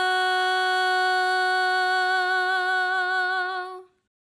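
A single voice singing one long, steady held note with a slight waver, sung loudly for a recording program's microphone volume check. It cuts off near the end.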